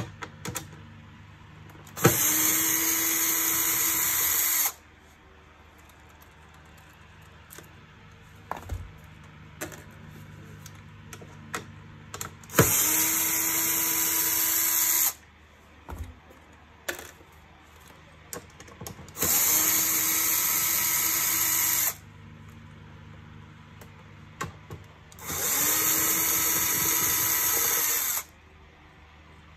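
Cordless drill-driver running in four steady bursts of about two and a half seconds each, removing screws from a plastic vacuum-cleaner housing. Light clicks of handling come between the bursts.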